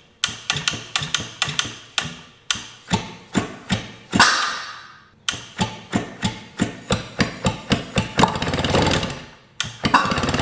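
A Suzuki GT185's two-stroke twin engine, cranked on a weak electric starter, firing in single loud pops about two to three times a second. Near the end it catches and runs roughly for about a second, dies, then catches again. The owner suspects its crankcase is flooded with oil from a leaking oil-injection pump, fouling the plugs and half-hydrolocking it.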